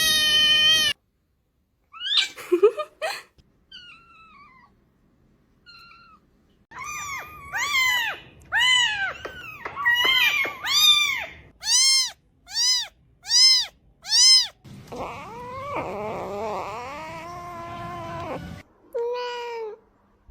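Kittens mewing: a run of short, high, rising-and-falling mews, about one and a half a second, then a longer stretch of several mews overlapping, and a last mew near the end.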